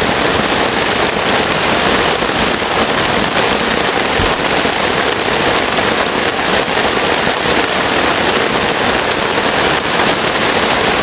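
Heavy rain pouring down steadily, a dense, unbroken hiss of drops.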